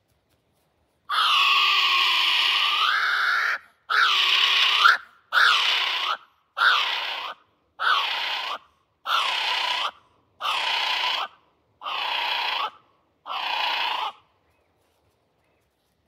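Kiwi calling: a series of nine loud cries, the first long, about two and a half seconds, then eight shorter ones of about a second each at a steady pace, roughly one every 1.3 seconds.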